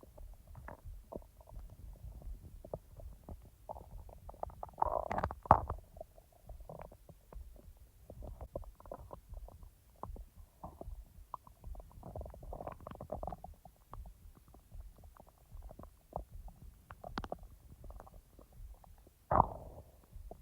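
Human stomach gurgling and rumbling with digestion: a run of small pops and gurgles, with louder gurgles about five seconds in, a cluster around twelve seconds, and one sharp, loud gurgle just before the end.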